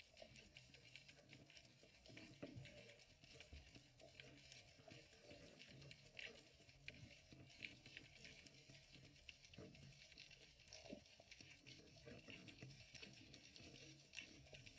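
Faint underwater ambience picked up inside a GoPro's waterproof housing: scattered soft clicks and crackles over a low, muffled hum.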